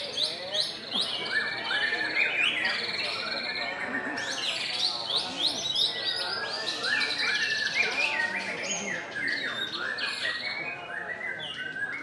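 White-rumped shama singing: fast, varied whistled and chattering phrases, mixed with continuous song from many other caged songbirds singing at once.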